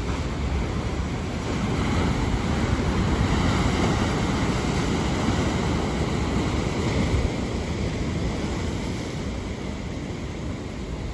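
Atlantic Ocean surf: strong waves breaking and washing ashore, a rush of water that swells about two seconds in and eases off in the second half.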